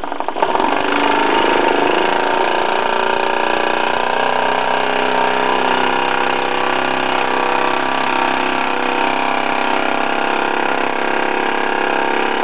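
Stuart Turner ST1 oscillating steam engine running on steam. About half a second in there is a click, then it runs louder and steadier.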